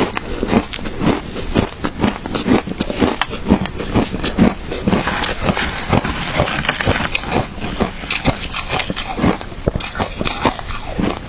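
Shaved ice being chewed and crunched in the mouth, with irregular crunches several times a second.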